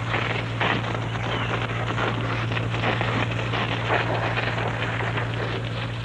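Burning moorland vegetation crackling irregularly over a steady low hum.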